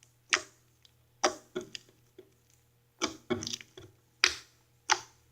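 Homemade glitter slime being squeezed and handled, giving a string of short, wet clicks and pops at irregular intervals, about seven in all.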